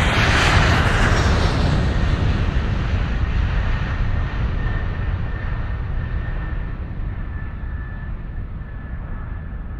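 Added aircraft flyby sound effect: a loud rushing whoosh in the first second or so, then a low rumble that slowly fades and dulls as it draws away. A faint thin whine comes in about halfway.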